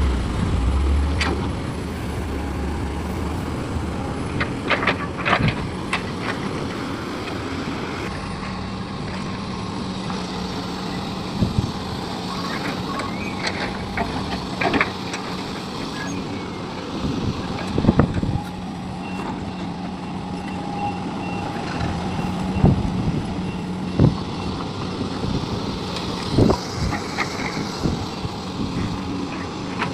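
Heavy diesel machinery working, an excavator loading a dump truck: engines run steadily, with a louder low rumble in the first couple of seconds and a steady low hum from about eight seconds in. Scattered sharp knocks and clanks occur throughout.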